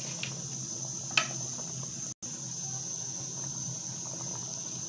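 Kofta curry bubbling at a simmer in a steel pot of tomato and yogurt gravy, with a steady high-pitched tone behind it. A brief click comes about a second in.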